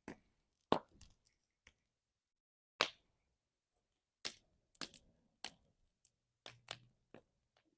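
Campfire wood crackling: about ten sharp pops and snaps at irregular intervals.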